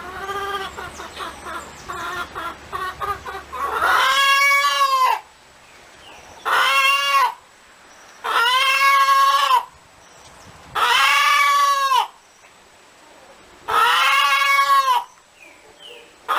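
A chicken clucking in quick short notes, then giving five loud drawn-out calls about two and a half seconds apart, each about a second long and rising then falling in pitch.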